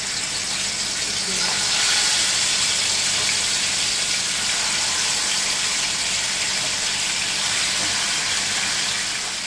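Marinated chicken pieces sizzling in hot oil as they are laid into a nonstick wok. The steady hiss swells about a second in.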